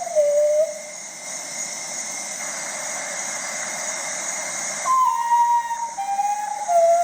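Common potoo (urutau) calling: a mournful phrase of whistled notes, each lower in pitch than the last. One phrase ends just under a second in and another begins about five seconds in, with a steady hiss between them.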